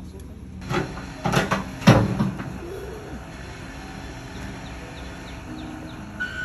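Wheel loader at work: a few loud clanks and scrapes between about one and two seconds in, the loudest near two seconds, then its engine running low and steady. A reversing beep starts right at the end.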